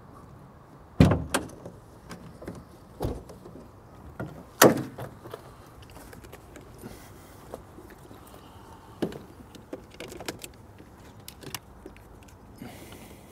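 Sharp knocks and clicks a second or more apart from metal jump-starter clamps and cables being handled and clipped onto a flat car battery. The two loudest come about a second and four and a half seconds in.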